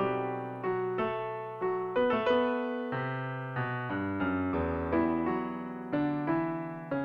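Digital piano playing a slow, gentle piece: notes and chords are struck about once a second, and each one dies away before the next.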